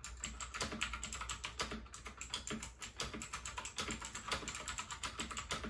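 Fast typing on a budget computer keyboard: a dense, steady run of key clicks.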